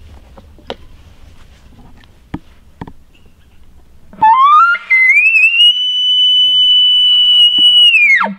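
An elk bugle. About four seconds in, a loud whistled note rises quickly in pitch, holds high and steady for about three seconds, then drops off sharply at the end. A few faint clicks come before it.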